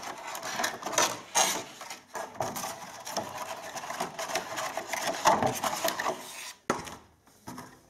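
Clear plastic blister packaging crackling and rustling as it is handled and pulled apart to free a computer mouse, full of sharp crinkles; it quietens near the end.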